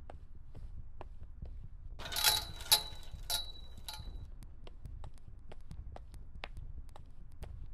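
Footsteps clicking on pavement, two to three a second, over a low steady rumble. About two seconds in comes a brief, louder clatter with a ringing high tone.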